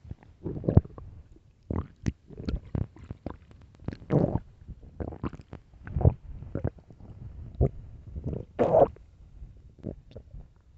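A person's stomach growling and gurgling: a quick, irregular run of short rumbles and squelches, the loudest about four seconds in and again near the end.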